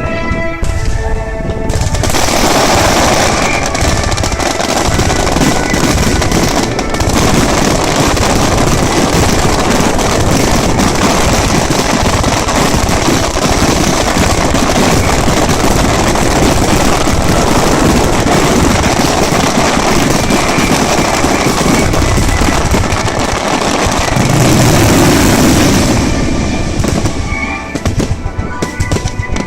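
A starmine fireworks barrage: many shells launching and bursting in rapid, overlapping succession with crackle, a continuous dense volley from about two seconds in until near the end. Accompanying music is heard at the start and again at the end, drowned out while the barrage runs.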